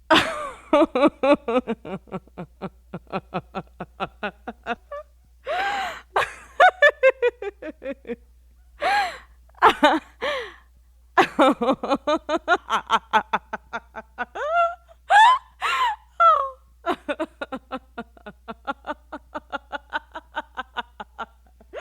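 A person laughing hard in rapid gasping pulses, with a few high rising-and-falling squeals and short breaks for breath.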